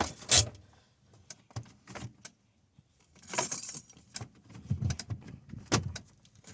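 A bunch of keys jangling on a car's ignition key as the key is turned on, with one sharp jangle at the start, then scattered light clicks and rattles.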